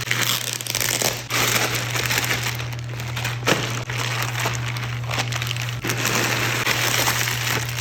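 Plastic packaging crinkling and rustling as it is handled and opened, with a few sharp clicks.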